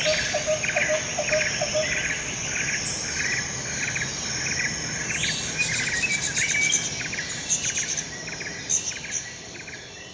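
A chorus of chirping insects, with short chirps repeating about twice a second over a steady high hiss. A quicker run of lower chirps sounds through the first two seconds, and the chorus fades out near the end.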